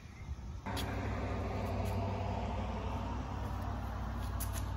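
A motor vehicle's engine running steadily with a low hum; it comes in abruptly about half a second in.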